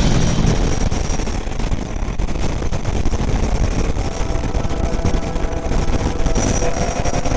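Motorcycle ride heard from the bike itself: the engine running at road speed under a loud, steady rush of wind on the microphone.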